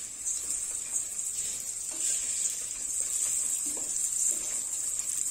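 Oil sizzling in a stainless steel pot as bulgur is tipped onto fried vermicelli and stirred with a wooden spoon: a steady high hiss with a few light knocks of the spoon.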